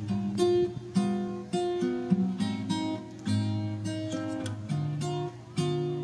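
Background music: an acoustic guitar plucking a melody over bass notes, a few notes a second.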